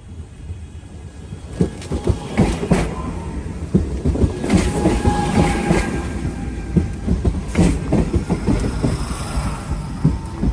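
Passenger train running past close by, its rumble growing louder about a second in, with many sharp wheel clicks as it rolls over the rail joints.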